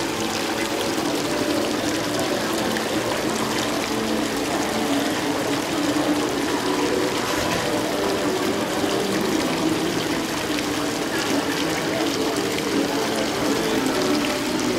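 Fountain water pouring steadily down stone steps into a shallow pool, a continuous splashing rush.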